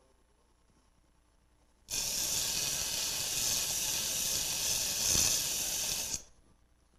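A glued ring of wood segments held flat against a sanding disc spinning on the lathe: a loud, steady hiss of abrasive grinding wood. It starts suddenly about two seconds in and stops about four seconds later.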